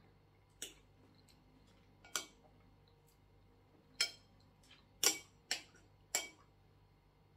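Metal knife and fork clinking against a plate while food is cut, about six sharp clinks spaced irregularly, the loudest cluster a little past the middle.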